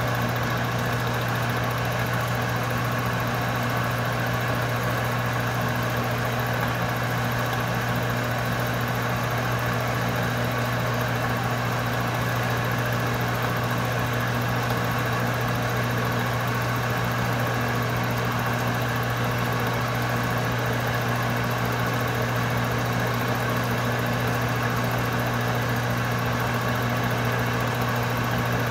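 Atlas metal lathe running a fly cutter through a light milling cut on a block held in a milling attachment: a steady machine hum from the motor, belt drive and Babbitt-bearing spindle.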